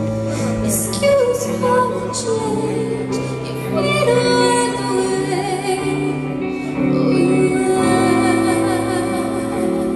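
Live rock band playing, heard from the crowd: electric guitars, bass guitar and drums, with a woman singing lead.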